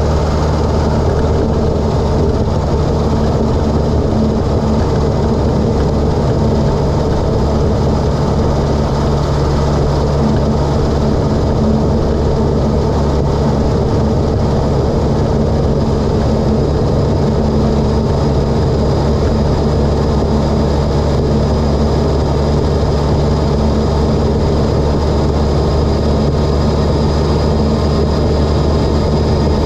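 Mitsubishi Lancer Evolution X's turbocharged 2.0-litre four-cylinder engine, fitted with an Injen intake and HKS single-exit exhaust, running at a steady engine speed while the car drives, with no revving up or down.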